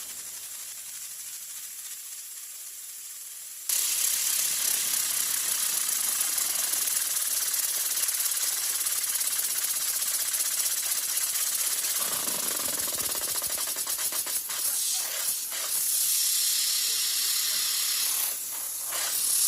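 High-pressure waterjet cutter's stream hissing as it cuts a spinning wooden blank. It cuts in sharply and loud about four seconds in and runs steadily, its sound shifting around twelve seconds in and dipping briefly near the end.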